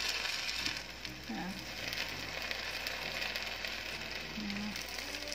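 Hot, freshly baked kalb el louz (semolina almond cake) sizzling as sugar syrup is ladled over it and soaks in. The hiss is strongest for about the first second, then settles to a softer, steady sizzle. The sizzle shows the cake is still hot enough to drink up the syrup.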